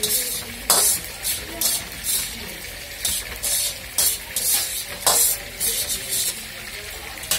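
Steel spatula scraping and tossing rice around a black wok while stir-frying, in quick hissing strokes about two to three times a second, the loudest a little under a second in.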